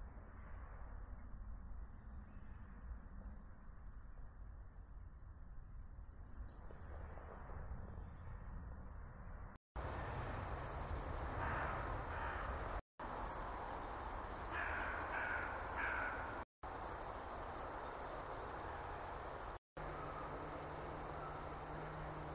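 Quiet woodland sound: short, high thin songbird notes in the first seconds, then a crow cawing about three times around the middle. A steady low hum comes in near the end.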